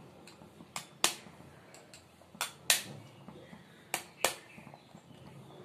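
An eggshell being tapped to crack it: about six sharp taps in three pairs, the taps in each pair about a third of a second apart.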